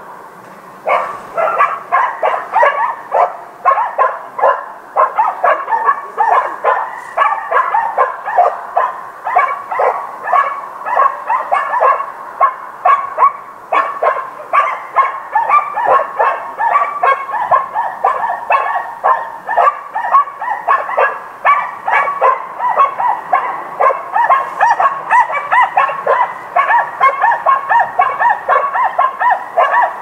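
A group of dogs barking in the distance, their barks overlapping in a continuous run of several barks a second.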